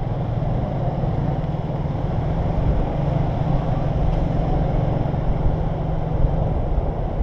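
Motorcycle running at riding speed in city traffic: a steady low engine hum under road noise.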